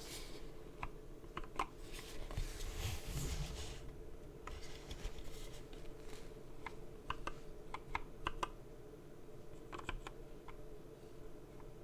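Scattered keystrokes on a custom 65% mechanical keyboard with lubed and filmed Gateron Milky Yellow linear switches on an aluminum plate: single presses and short clusters of a few keys rather than steady typing. A few brief stretches of rustling noise come between them.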